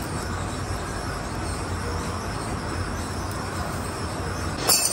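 Steady background noise with a low hum, broken near the end by one brief, sharp, high-pitched sound.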